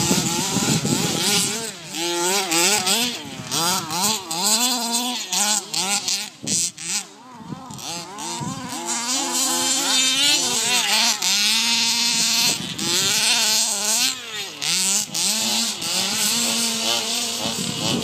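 HPI Baja large-scale RC buggy's small two-stroke petrol engine revving up and down as it is driven, its pitch rising and falling with the throttle, with a short quieter lull about seven seconds in.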